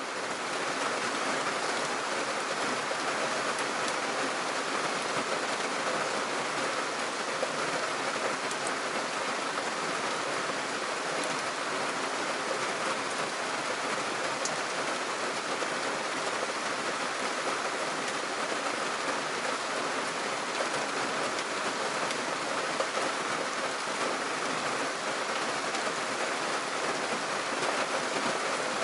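Heavy rain falling steadily on shallow wetland water, an even hiss with no let-up.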